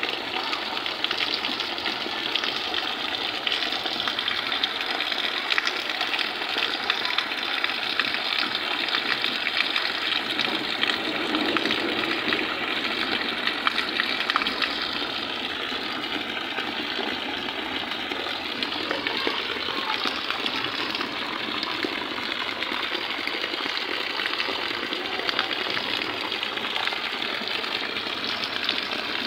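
Heavy rain pouring steadily onto a flooded dirt courtyard, splashing into the standing water.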